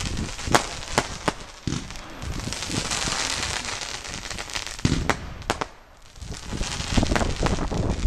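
Consumer firework battery firing: sharp bangs of shots launching and bursting, several about a second in and again near five seconds, with hissing and crackling of the stars and sparking tails between them. There is a brief lull a little after five seconds before the shots pick up again near the end.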